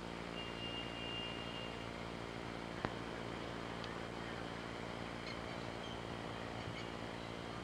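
Steady hum and hiss of a camcorder's own running noise on the tape, with a brief high whistle about half a second in and a single sharp click just before three seconds.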